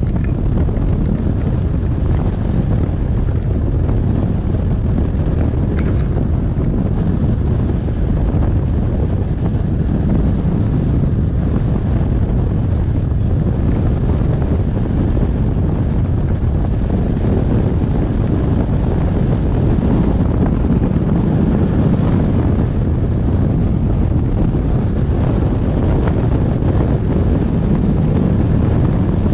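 Steady, loud wind noise as the airflow of a hang glider in flight buffets the wing-mounted camera's microphone, a constant low rumbling rush.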